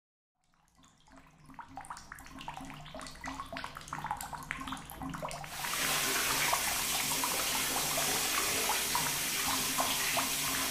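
Water dripping onto a tiled floor, sparse at first and growing denser. About halfway through, the shower starts running with a steady hiss, over a low pulsing hum.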